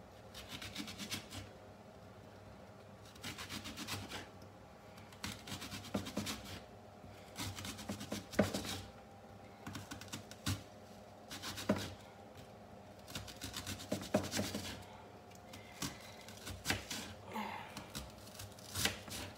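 Kitchen knife slicing a peeled onion into rounds on a wooden cutting board: repeated short bursts of crisp cutting and crackling, with sharper taps now and then as the blade meets the board.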